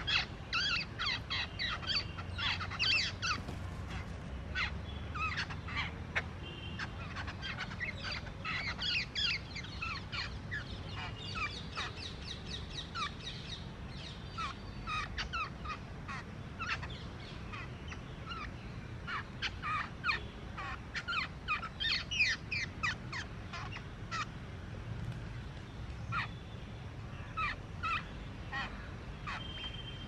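Jungle babblers chattering: rapid runs of short, harsh, squeaky calls that come in bursts with brief lulls between them.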